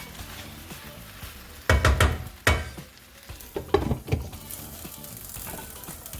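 Cabbage frying in a pan with a steady sizzle, stirred with a utensil that knocks and scrapes against the pan in two short bouts, about two seconds in and again about four seconds in.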